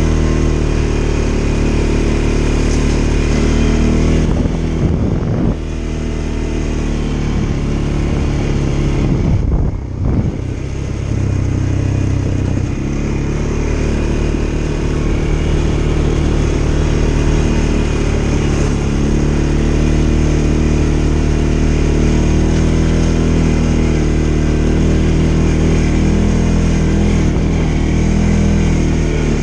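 CFMoto ATV engine running steadily under throttle at trail speed. The revs drop briefly about five seconds in and again around ten seconds in, then pick back up.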